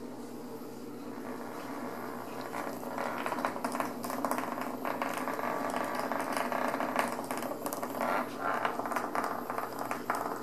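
Sheer organza drawstring bags rustling and crinkling as kittens paw and pounce on them: a dense scratchy rustle full of small clicks that starts about two and a half seconds in. A steady low hum underneath.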